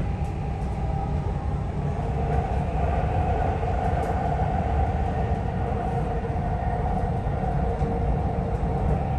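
Dubai Metro train running, heard from inside the carriage: a steady rumble with a motor whine that grows a little louder about two seconds in.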